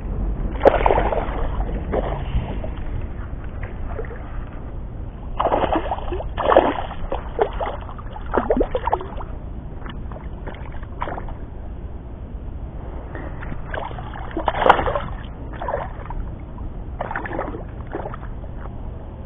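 Hooked black bass thrashing and splashing at the water's surface close to the bank, in several irregular bursts, over a steady low rumble.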